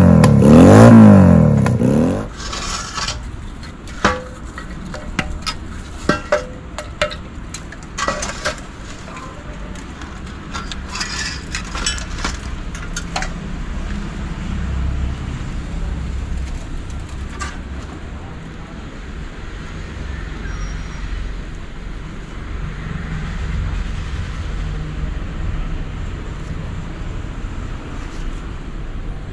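A motorcycle engine revs hard several times in quick succession, then cuts off after about two seconds. After that, scattered clinks, knocks and scrapes of scrap metal being moved about sound over a steady low rumble.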